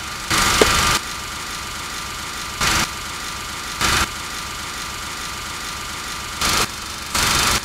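A steady hum and hiss broken by five sudden bursts of loud hiss like static, each switching on and off abruptly. The first and last bursts last about half a second or more; the middle three are shorter.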